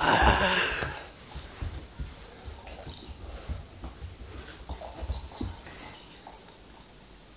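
Rottweiler puppy giving a loud whining yelp about a second long right at the start, then quieter scattered bumps and scuffles as it plays.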